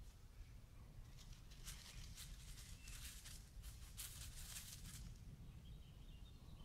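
Near silence with a faint low rumble. From about one to five seconds in there is a string of soft rustling crackles.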